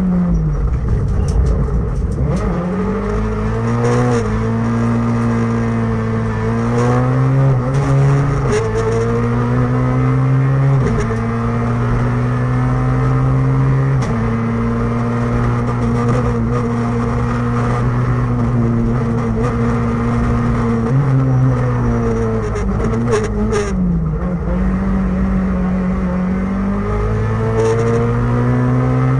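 Rally car engine heard from inside the cockpit at stage pace, revving hard up and down through the gears. Its pitch climbs and then drops sharply at each gear change several times, with a few sharp clunks.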